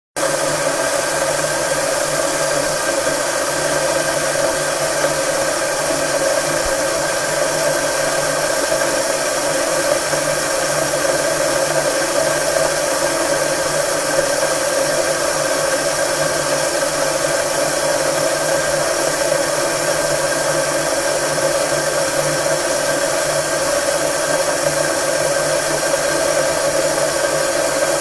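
Milk boiling in a double-walled stainless steel milk boiler on a stove hob: a steady rushing hiss that does not change.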